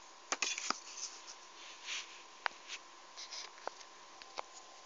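Handling noise of a plastic geometry set square: several sharp plastic clicks and short rustles as it is picked up and turned in the hand, over a faint steady whine.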